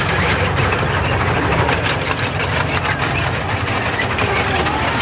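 A T-34 tank driving past, its heavy diesel engine running steadily with a fine clatter of steel tracks over it.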